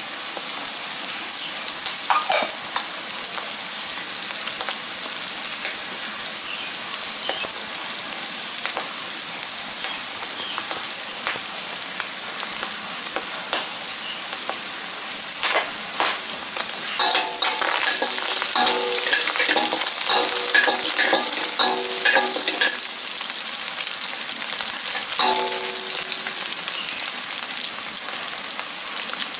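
Garlic, shallots, chilies and scrambled egg sizzling in oil in a wok, a steady frying hiss. From about 17 to 23 seconds in, and again briefly a little later, a spatula stirs and scrapes the wok with quick clinks and short ringing tones from the pan.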